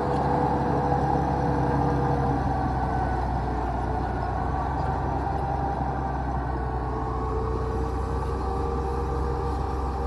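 A bulldozer's diesel engine running steadily, with a low hum under a noisy mechanical clatter.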